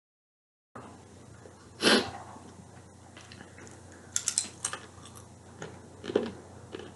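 Quiet room sound with a short breathy noise about two seconds in, then a quick cluster of small sharp clicks around four seconds, and a fainter short noise near six seconds.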